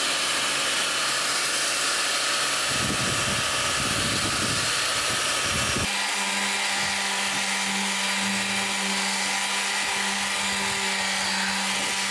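Handheld electric power tool running steadily while sanding wood; the sound changes abruptly about six seconds in.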